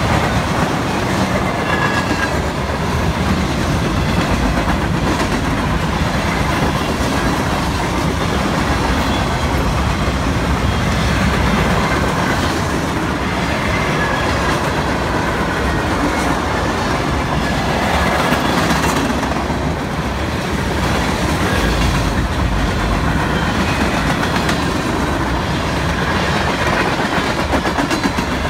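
Freight cars of a mixed freight train rolling past close by: tank cars, gondolas and boxcars. There is a steady loud rumble, with the wheels clattering over the rail joints.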